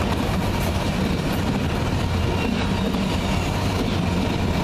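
Autorack freight cars rolling past close by: a steady rumble of steel wheels on rail.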